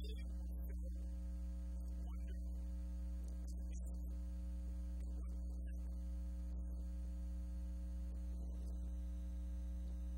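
Steady electrical mains hum, with a strong low drone and fainter overtones above it.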